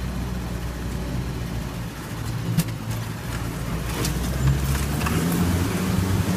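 Land Rover Series 4x4 engine running under way, its note climbing and getting louder in the second half as it is driven harder. Two sharp knocks, a bit over two seconds apart, as the vehicle jolts.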